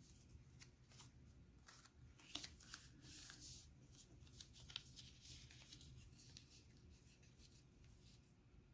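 Faint rustling and crinkling of a square of origami paper as it is unfolded, flattened and refolded by hand, with a few sharper crackles between about two and a half and five seconds in.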